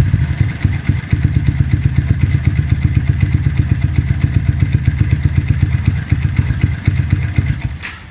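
Yamaha Vixion 150 (FZ150) single-cylinder four-stroke engine idling through an aftermarket Akrapovic Titan carbon slip-on exhaust, with an even, steady beat after the revs drop back. It stops abruptly near the end.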